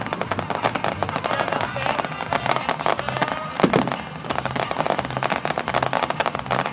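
Fireworks crackling: a dense, continuous crackle of many rapid small pops.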